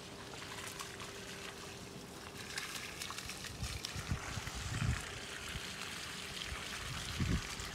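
Water running from a garden hose onto soil and mulch at the base of shrubs, a steady trickling splash. A few soft low thumps come through around the middle and near the end.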